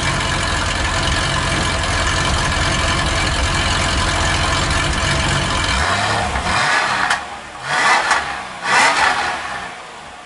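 Porsche 993's air-cooled flat-six, exhaust fitted with Fabspeed 200-cell catalytic converters and RSR silencer boxes, idling steadily, then revved in three quick throttle blips near the end, the last two loudest, before dropping back to idle.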